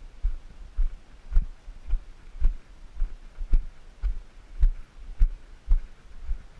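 Footsteps walking on a rock-and-gravel breakwater, about two steps a second. Each step is a dull thump with a light crunch of stones.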